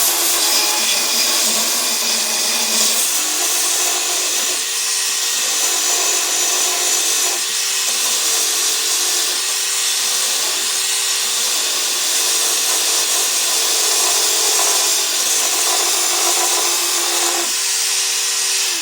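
Battery-powered mini belt sander running steadily, sanding rust off metal into a corner. Its motor tone dips briefly several times as the belt is pressed into the work.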